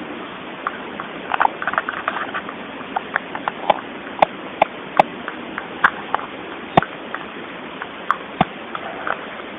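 Siamese cat licking yogurt, an irregular run of short wet clicks and mouth smacks, a few of them louder and sharper about four to seven seconds in.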